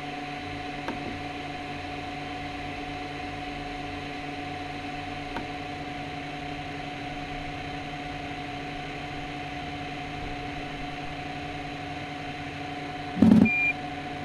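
Fullextruder PRO desktop filament extruder giving a steady hum with fan noise while its heaters warm up, the extruder motor stopped. Near the end comes a short thump and a brief high beep.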